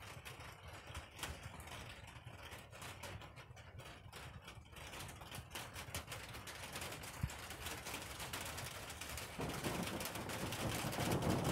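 Rain coming in: scattered raindrops tapping irregularly on nearby surfaces, growing thicker until a steady rain hiss builds and gets louder about nine seconds in.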